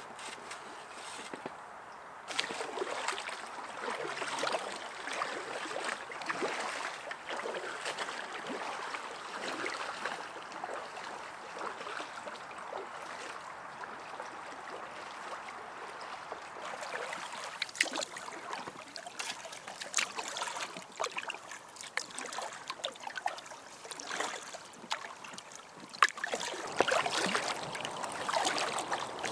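Water trickling and splashing around a small inflatable packraft on the move, with irregular sharp splashes throughout that come thicker and louder in the last few seconds.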